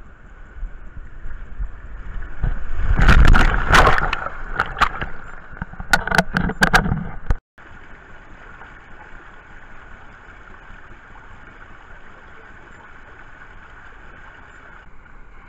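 Water rushing along a fibreglass water slide under a sliding rider, heard from a camera riding along. It swells into loud splashing from about two and a half to four and a half seconds in, with a few sharp splashes around six to seven seconds. After a brief dropout a steadier, quieter rush of water follows.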